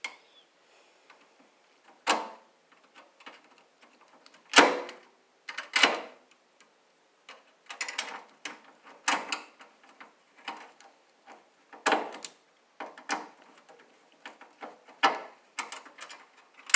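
Irregular sharp metallic clicks and scrapes of a hand tool working on a stubborn flathead screw in the table saw. The loudest click comes about four and a half seconds in, and the clicks come quicker over the second half.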